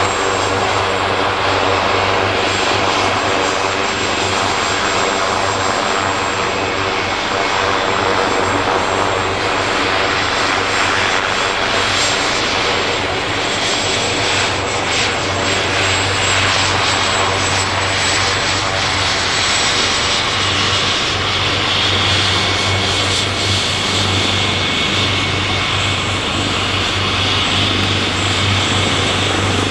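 Leonardo AW139 helicopter running on the ground at taxi power: its twin Pratt & Whitney PT6C-67C turboshaft engines give a steady high turbine whine over a constant low rotor hum and the rush of the main rotor.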